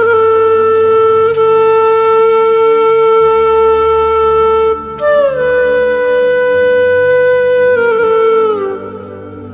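Background music: a wind instrument holds one long note for about four and a half seconds, then plays a higher note that slides down in two steps and fades near the end, over a low sustained accompaniment.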